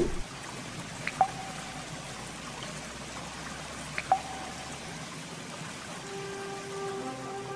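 Logo-intro sound design: a soft, steady water-like hiss with two short drip-like pings, about a second in and again about four seconds in. Held brass-like music tones fade in near the end.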